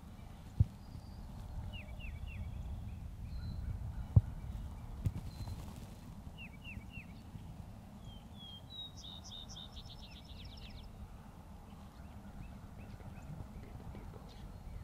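Birds calling in short series of quick descending chirped notes, three times, the longest series near the middle, over a steady low rumble. Three sharp knocks stand out as the loudest sounds: one about half a second in and two more about four and five seconds in.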